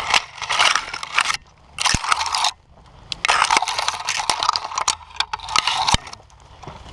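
Twigs and leafy branches crackling and scraping against the helmet and dirt bike in irregular bursts as the bike is forced through dense brush, with two short dull knocks, about two seconds and six seconds in.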